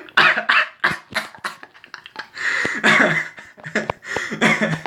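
A man laughing hard in repeated breathy, wheezing bursts.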